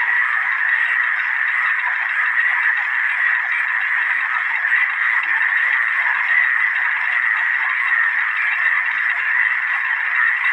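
A chorus of many frogs calling at once: a continuous, even din with no single call standing out.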